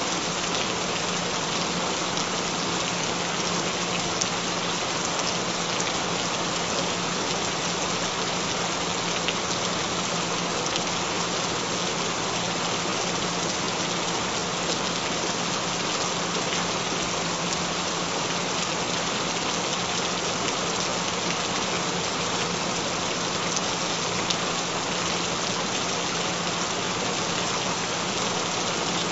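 Steady rain falling: an even, unbroken hiss of rain with a few scattered drop ticks and a faint steady low tone underneath.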